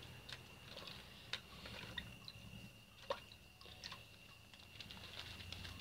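Faint wet squishing, small splashes and drips of a hand rubbing and rinsing snakehead fish in a bucket of water, washing off the slime.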